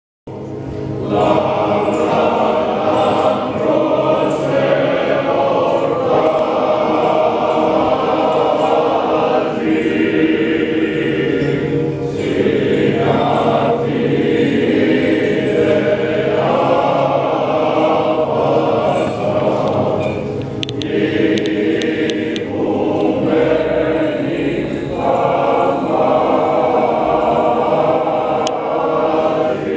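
A choir singing Greek Orthodox Byzantine liturgical chant in continuous phrases, starting about a second in.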